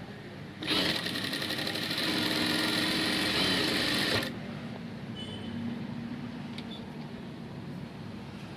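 Industrial sewing machine running at speed for about three and a half seconds, a fast, even chatter of stitching, then stopping abruptly; a faint steady hum carries on afterwards. It is a test run of the stitch after the upper thread tension has been tightened to cure loose, looping stitches.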